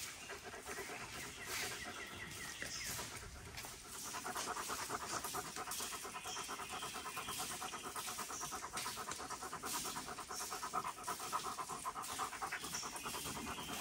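A dog panting rapidly and evenly, growing stronger about four seconds in.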